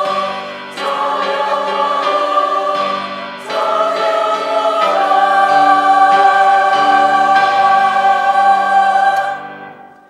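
Women's church choir singing the closing phrase of a hymn of praise, ending on a long held chord that dies away just before the end.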